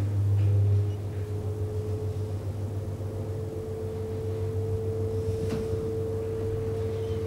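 Schindler hydraulic elevator travelling upward, its hydraulic pump unit running: a steady low hum with a higher whine above it that steps up slightly about two seconds in. The hum is loudest in the first second, then settles.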